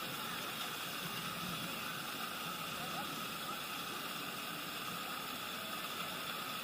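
Steady rushing of water at a water park, with faint voices of people in the distance.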